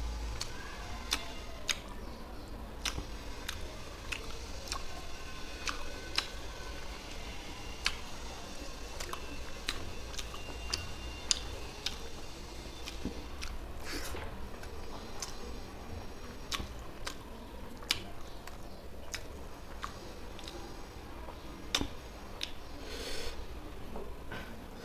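Close-up sounds of eating rice and fish curry by hand: fingers squishing and mixing wet rice, and chewing with frequent short, sharp clicks and smacks, over a low steady hum.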